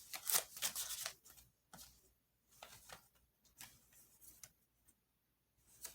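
Tarot cards being handled: a quick run of soft clicks and rustles in the first second, then a few faint, scattered taps.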